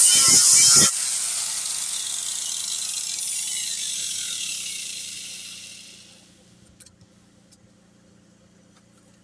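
Angle grinder with a sanding disc grinding against a fibreglass boat hull for about a second, then switched off and spinning down, its whine falling in pitch and fading away over several seconds. Two faint clicks near the end.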